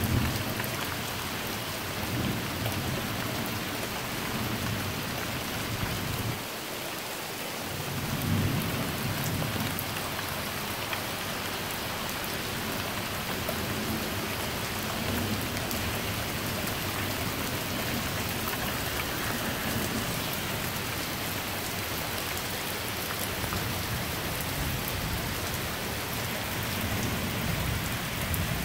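Heavy rain pouring steadily, with low rolls of thunder swelling now and then, one clearly about eight seconds in.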